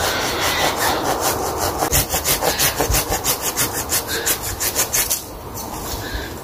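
Hand saw cutting through wood in quick, even back-and-forth strokes, about four a second, stopping abruptly about five seconds in.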